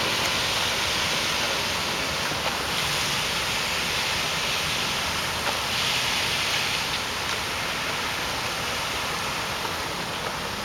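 Water from a row of display fountain jets spraying and splashing down onto a lake: a steady hiss that swells and eases a few times as the jet pattern changes.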